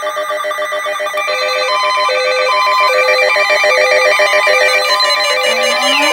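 Layered electronic alert tones. A fast trilling ring runs throughout. About a second in, a two-note beep joins it, its low and high notes alternating a little faster than twice a second. Near the end, a siren-like tone starts to rise in pitch.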